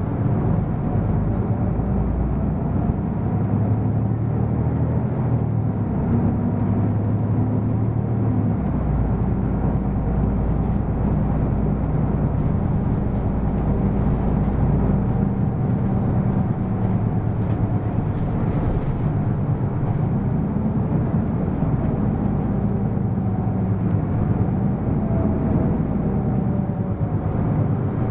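Hino PDG-KV234N2 city bus running on the road: a steady diesel engine and drivetrain drone with road noise, the engine note stepping up and down several times as the bus changes speed.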